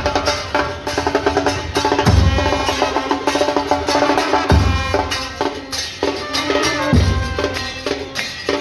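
Music with busy, rapid percussion and pitched notes over it, punctuated by a deep bass hit about every two and a half seconds.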